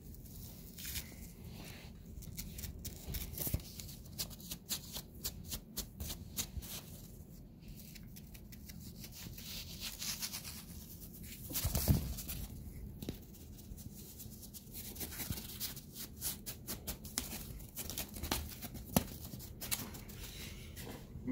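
Scratchy rustling and quick clicks of goose feathers being flicked over carpet as a cat pounces and claws at them, coming in clusters, with one louder scuffle about twelve seconds in.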